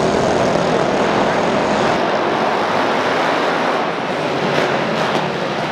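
A pack of racing mini bikes' small single-cylinder engines running hard together, a loud, dense engine din. The deepest part of the sound falls away about two seconds in.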